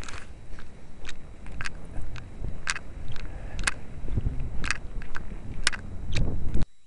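Footsteps crunching on snow and ice, about two steps a second, over a low rumble of wind and handling noise on the camera's microphone. The sound cuts off abruptly near the end.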